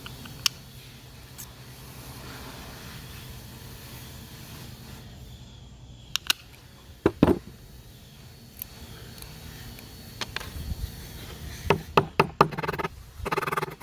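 Tin snips cutting a thin stainless steel clamp strip: scattered sharp snips and clicks, with several close together near the end, over a steady low hum.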